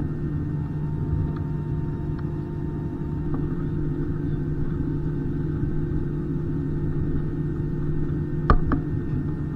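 Steady low rumble inside a vehicle, with a constant engine hum. Two sharp knocks come close together near the end.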